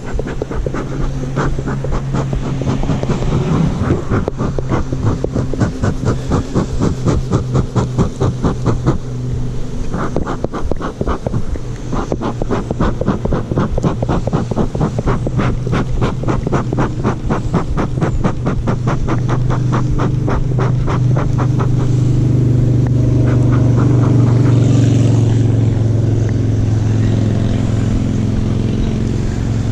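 Honeybees buzzing around an opened hive as frames of bees are moved in: a loud, steady, low drone that swells louder about two-thirds of the way through.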